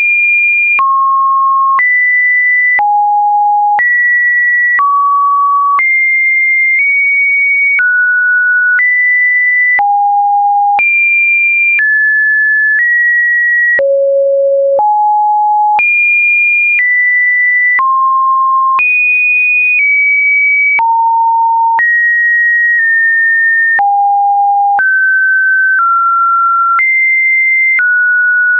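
Computer-generated sine-wave test tones: a steady sequence of pure beeps, about one per second, each at a different random pitch between fairly low and high, with a faint click at each change of note.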